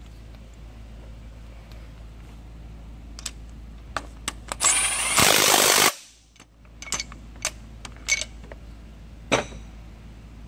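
Cordless impact tool running down the new injector hold-down bolt on a Volvo D13 cylinder head in one short burst of just over a second, about halfway through, that cuts off suddenly. Light metallic clicks and knocks of the tool and socket come before and after.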